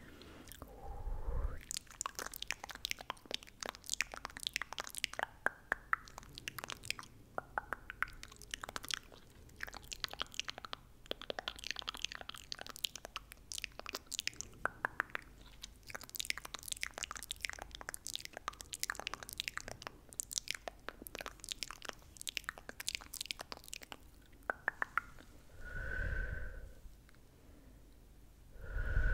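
Close-miked ASMR mouth sounds: a dense, irregular run of wet clicks and tongue clicks, with two short, louder low sounds near the end.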